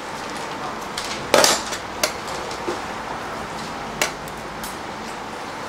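Metal serving tongs clinking against stainless steel food trays while a pita is filled: a louder clatter about a second and a half in, then a few lighter clicks, over steady room noise.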